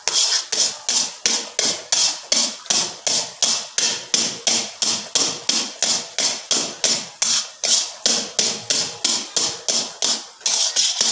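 Flat metal spatula knocking and scraping against a heavy iron karahi in fast, even strokes, about three to four a second, as thick semolina-and-jaggery halwa is worked hard off the bottom of the pan.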